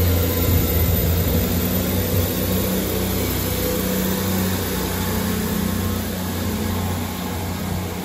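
Underfloor diesel engines of a two-unit Class 158 diesel multiple unit running under power as the train pulls out of the platform, a steady deep engine note that eases off a little toward the end.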